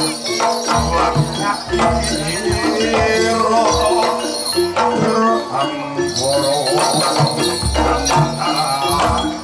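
Live Javanese gamelan music accompanying a jaranan-bantengan dance: pitched metallophone tones over repeated drum strokes, with bells jingling.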